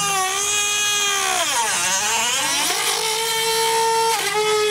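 Handheld rotary tool whining at high speed as it cuts away the plastic shroud. Its pitch sags and wavers about two seconds in as the bit slows against the plastic, then climbs back to a steady whine.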